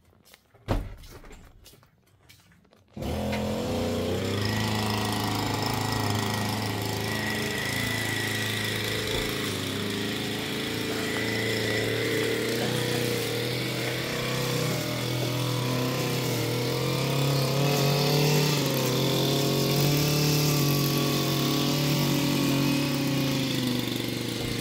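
A single thump about a second in, then a car's engine running steadily, heard from inside the cabin, its low hum wavering slightly in pitch as the car moves.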